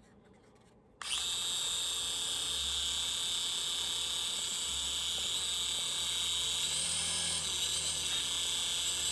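Small electric motor and rotor of a toy UFO flying helicopter, a high steady whir that starts abruptly about a second in. The pitch wavers briefly near the end as the motor powers up.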